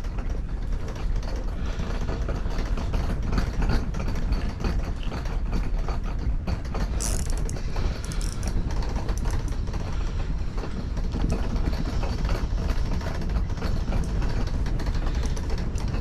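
Wind buffeting the microphone as a steady low rumble, with rapid mechanical clicking and rattling throughout and a short hiss about seven seconds in.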